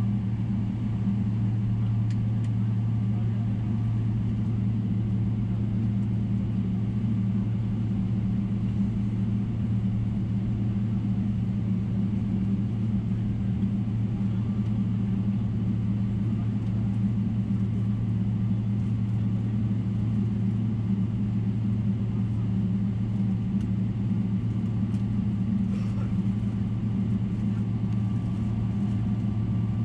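Cabin noise of a Boeing 777-300ER: its GE90-115B engines and the airflow making a steady low drone, with a deep hum and a second, higher hum over it.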